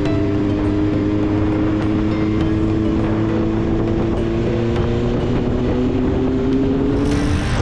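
Motorcycle engine running at speed, its pitch climbing slowly as it accelerates, with wind rushing over the microphone.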